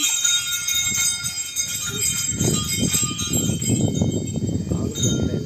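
Small bells jingling continuously, with people's voices joining underneath from about two seconds in.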